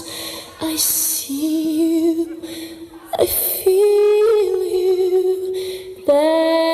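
Music: a slow melody of long held notes that step from one pitch to another, with a few short brighter hits between them.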